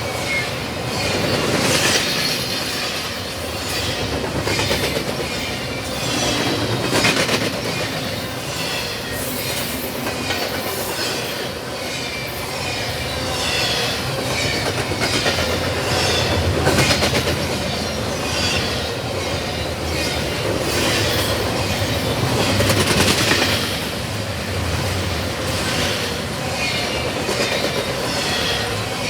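Double-stack intermodal freight train rolling past at close range, its wheels clacking over rail joints with repeated knocks and a wavering high-pitched flange squeal.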